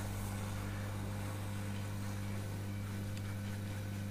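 Hot air rework station blowing steadily onto a phone board's eMMC chip, reflowing the chip's solder balls: an even hiss of air over a low steady hum.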